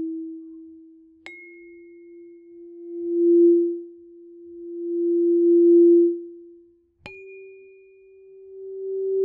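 Clear crystal tuning forks ringing with pure, steady tones. About a second in, a fork is struck with a click and a brief high overtone, and its hum swells and fades twice before stopping. About seven seconds in, another strike starts a slightly higher tone that swells near the end.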